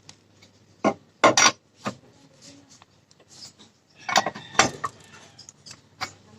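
Metal tools clinking and knocking against metal parts in a series of irregular sharp strikes, the loudest about a second in and again a little after four seconds.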